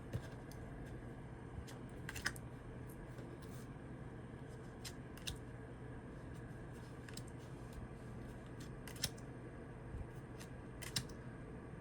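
Tarot cards being handled: scattered faint clicks and soft flicks of card stock as cards are moved and laid down, over a steady low hum.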